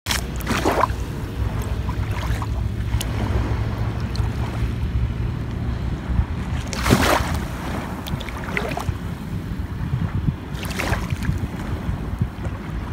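Wind buffeting the microphone as a steady low rumble, with small waves lapping and splashing in shallow water every few seconds.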